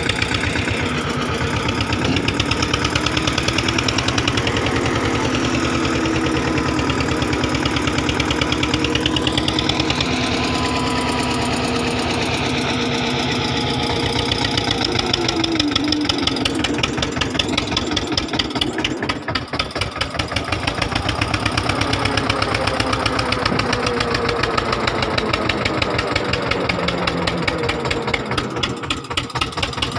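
Eicher 242 tractor's two-cylinder diesel engine running steadily with a rapid, even firing beat as the tractor works through deep sand towing a loaded trolley; the level dips briefly twice in the second half.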